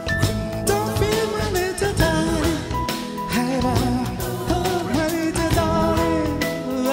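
Background pop song with a singing voice over a steady beat.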